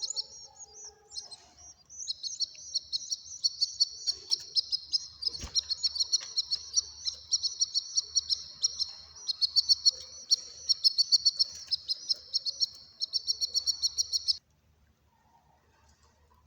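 Cage birds chirping in a rapid, continuous high-pitched stream that stops suddenly near the end, with a single soft knock about five seconds in.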